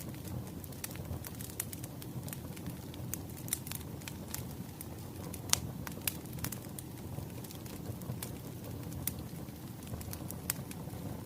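Firewood burning: a steady low hiss and rumble with irregular crackles and pops, the loudest pop about five and a half seconds in.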